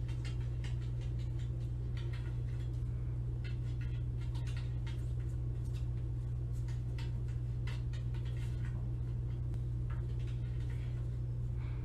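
A kitten's paws and claws tapping and scratching against a glass shower door in irregular light clicks, over a steady low hum.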